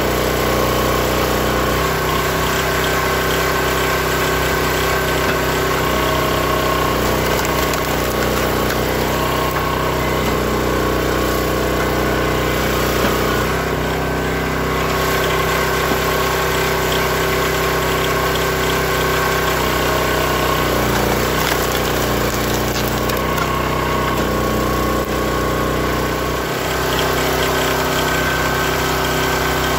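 Small gas engine of a Built-Rite hydraulic log splitter running steadily and driving its pump, its note shifting several times as the ram takes and releases load while splitting logs.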